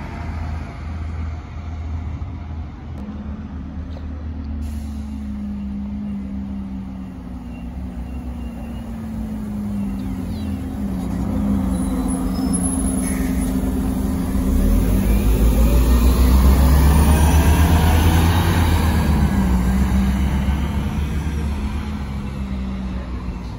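City bus engine running as the bus drives past close by, growing louder to a peak about two-thirds of the way through, then fading away.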